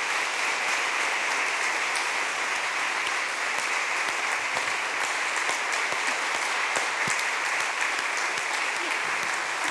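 A congregation applauding, dense steady clapping.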